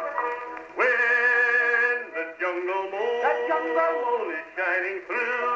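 Acoustic-era phonograph cylinder played back on an Edison phonograph: male singing with musical accompaniment, thin and narrow-toned with no deep bass or high treble. A stronger sung phrase comes in about a second in.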